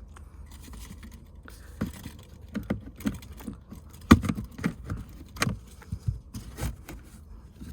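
Plastic under-dash trim panel being pulled and worked loose by hand: irregular clicks, knocks and rattles, the loudest knock about four seconds in.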